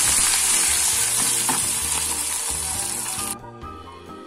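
Garlic and red purée frying in hot oil in a pan, sizzling loudly. The sizzle cuts off suddenly about three seconds in.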